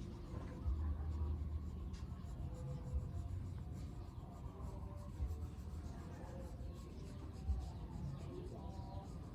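Drawing strokes on paper: a pen or pencil scratching across the sheet in short, repeated strokes.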